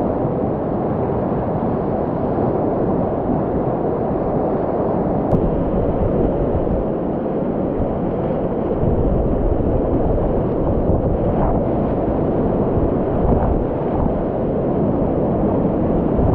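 Whitewater rapids rushing loudly and steadily around a kayak as it runs down a river rapid, with a single sharp click about five seconds in.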